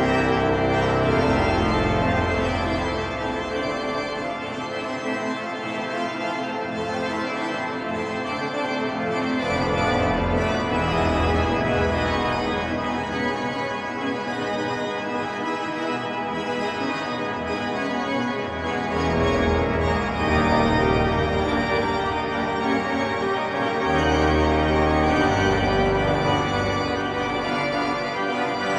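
The York Minster pipe organ playing a slow piece of held chords, with deep pedal bass notes coming in and dropping out.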